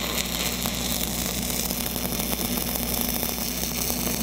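Steady crackle and hiss of an E6010 stick-electrode arc running a downhill root pass, with the current turned up to tie the puddle into the olet side where it had not fused. A steady low engine hum runs underneath.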